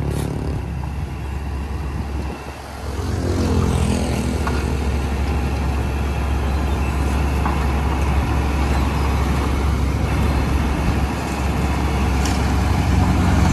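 Niigata NFB6C asphalt paver's engine running steadily under load. It drops briefly about two seconds in, then picks up again.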